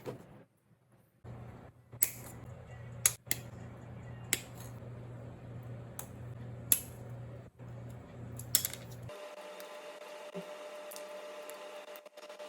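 Sharp clicks and snips from plastic model parts being worked with hobby tools, about seven spread over several seconds, over a steady low hum. About nine seconds in, the hum stops and a steady higher tone takes over.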